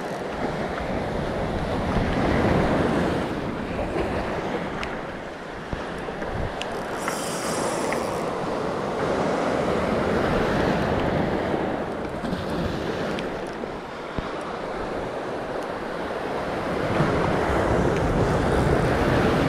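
Sea waves breaking and washing over a rounded-pebble shore, the surf swelling and fading every several seconds, with wind buffeting the microphone.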